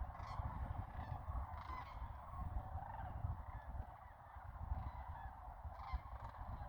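A flock of sandhill cranes calling: many rattling, trumpeting calls overlapping into a continuous chorus.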